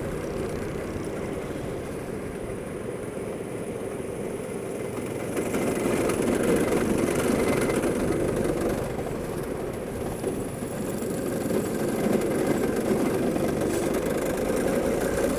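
Go-kart engine running, growing louder and then easing off in swells, the way it does through corners and along straights.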